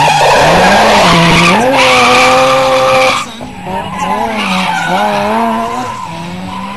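A drift car sliding sideways under power, its engine revving up and down, with loud tyre screech and hiss as it passes close by. About three seconds in the sound drops sharply, leaving the engine revs rising and falling more faintly as the car moves off.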